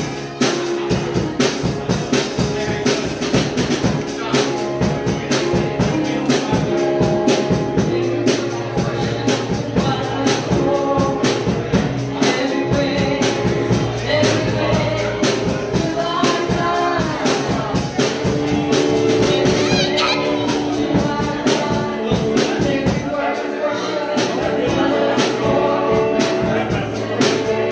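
Live gospel music: voices singing over a band with a fast, steady drum beat.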